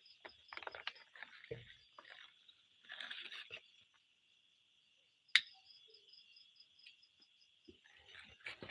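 Night insects trilling steadily, high-pitched with a rapid pulsing. Rustling noises come and go, and a single sharp click is the loudest sound, about five seconds in.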